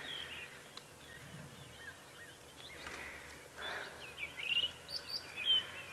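Quiet bush ambience: a low background hiss with a few faint, short high chirps in the second half.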